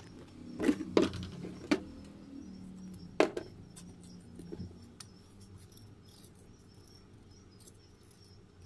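Rusty old steel scissors handled on a table: a few sharp metal clicks and knocks in the first three seconds or so, then fainter handling, over a low steady hum.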